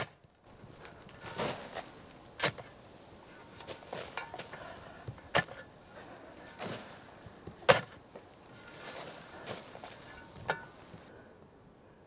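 Digging in garden soil: irregular scraping and rustling with sharp strikes a second or more apart, the loudest about eight seconds in, dying away near the end.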